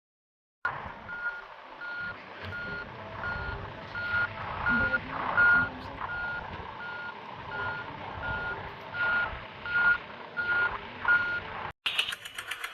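Reversing alarm beeping steadily about twice a second over a rumbling vehicle background, as a construction vehicle backs up. It starts about half a second in and stops near the end, where a different rapid clicking sound takes over.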